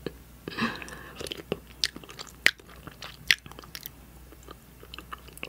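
Close-miked mukbang eating: biting and chewing with many sharp, irregular wet mouth clicks and a short breathy rustle about half a second in.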